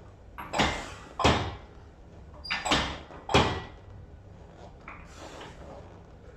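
Leg extension machine worked through a set of reps: a pair of short clunking, rushing sounds about every two and a half seconds, one as the pad goes up and one as it comes back down, with the last pair fainter.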